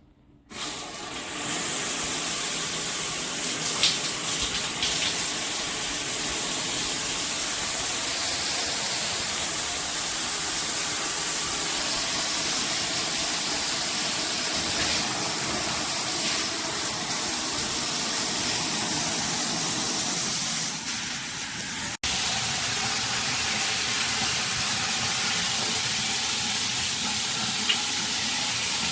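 Water spraying steadily from a 9-inch overhead rain showerhead, an even hiss of falling water that starts about half a second in. It breaks off for an instant about two-thirds of the way through, then goes on the same.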